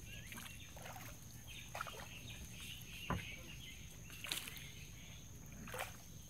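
Birds chirping and calling, short whistles and twitters throughout, with a few brief sharp noises, the loudest about three seconds in, over a faint steady high-pitched tone.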